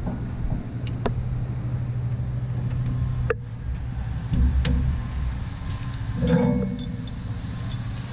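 Tractor engine running at a steady idle, with a few sharp metallic clinks as pins and parts of the three-point hitch are handled while hooking up an implement.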